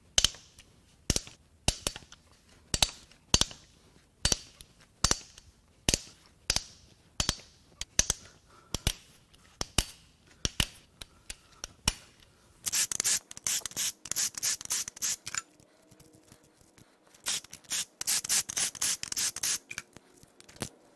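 Ratchet wrench loosening the cam cap bolts on a Ford 3.5L EcoBoost V6 cylinder head: evenly spaced sharp clicks about one and a half a second, then two stretches of rapid ratcheting in the second half.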